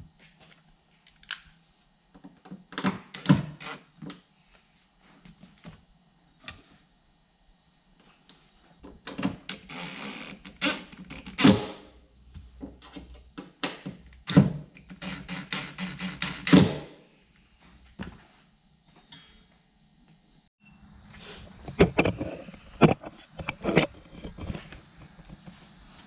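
Cordless drill running in several short spells, driving screws into the boat's inside panel to fix the remote drain plug control, with sharp clicks and knocks of handling between runs.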